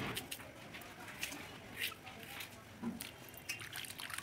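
A kitchen knife scraping and cutting a raw potato in short, irregular strokes. Near the end, hands stir cut potato pieces in a steel bowl of water.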